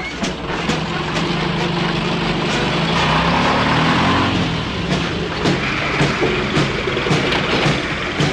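A heavy vehicle engine running, its pitch rising and falling in the middle, with regular knocks about two a second in the second half.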